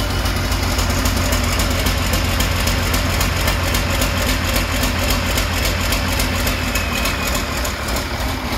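International DT466 turbo-diesel inline-six running at a steady idle, with an even, rapid diesel clatter over a low rumble.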